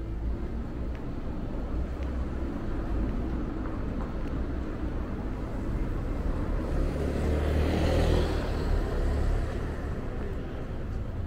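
Street traffic: a car passing close by, growing louder to its nearest about eight seconds in and then fading, over a low steady rumble of traffic.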